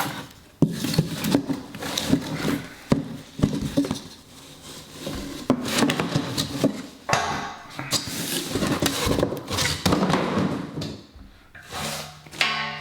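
Scattered knocks and clunks with stretches of rubbing and rustling: a heavy bench vise being handled and freed from its packaging.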